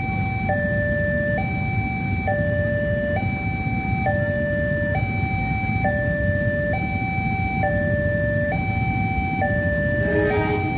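Railway level-crossing siren sounding its two-tone high-low wail, switching pitch just under every second. This is the crossing's warning that the barriers are closing for an approaching train. A steady low rumble runs underneath.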